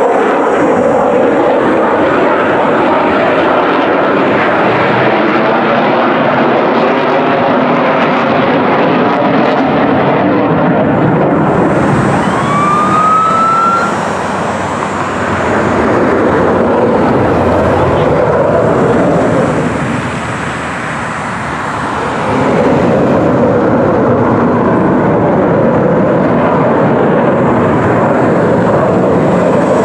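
Lockheed Martin F-35's single Pratt & Whitney F135 afterburning turbofan in flight, a loud, steady jet rush that dips briefly twice, around the middle and about two-thirds through. A short rising whistle sounds about halfway.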